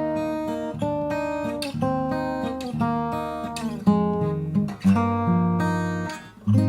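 Cort CJ5X jumbo acoustic guitar being played: chords with individually picked notes ringing on, and harder strummed strokes about four seconds in, about five seconds in and near the end.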